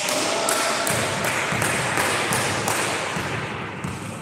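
Volleyball practice sounds echoing in a large sports hall: a ball struck sharply at the start, then the hall's reverberant din with low thuds of the ball and players' feet on the wooden floor.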